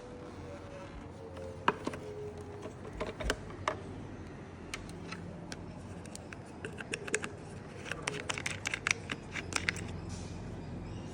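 Scattered light clicks and taps of small objects being handled, with a quick run of clicks in the second half.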